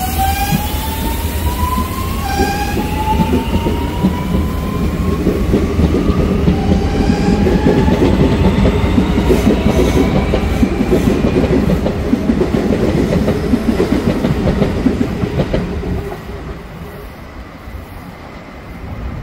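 Electric commuter train passing close by, with a whine that climbs in pitch in repeated steps as it accelerates, over a rumble and clickety-clack of wheels on the rails. The noise grows loudest mid-way, then drops away sharply about 16 seconds in.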